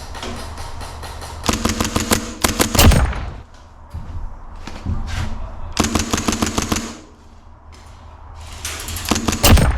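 Airsoft electric guns firing in rapid full-auto bursts of sharp clicks with a motor whir behind them. There are several bursts: the loudest is about two seconds in, another comes around six seconds, and a short one comes near the end.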